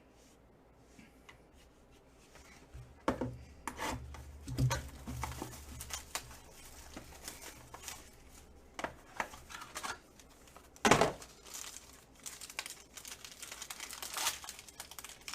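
Hands tearing open and crinkling a trading card pack's wrapper, with rustling and light taps of cards being handled. A sharp knock about eleven seconds in is the loudest sound.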